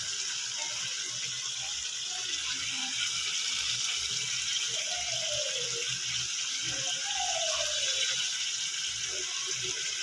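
Chicken livers sizzling steadily as they fry in oil and masala in a steel kadhai.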